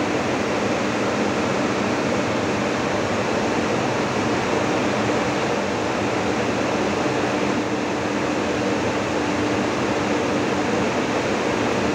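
Corn dryer running with its fans going: a loud, steady rush of air with a constant hum.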